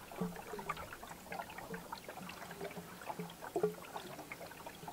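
Water trickling and gurgling faintly in short, irregular blips as it runs by gravity down a PVC pipe and hose into a PVC trough, filling a homemade gravity-fed chicken waterer.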